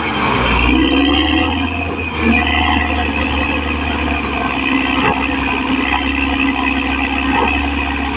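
Caterpillar D6R XL bulldozer's diesel engine running steadily under work, with a brief rise in level about two seconds in.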